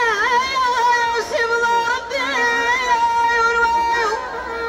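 A woman singing a high, long-drawn melodic line, wavering and ornamented at first and then held on long steady notes, breaking off about four seconds in.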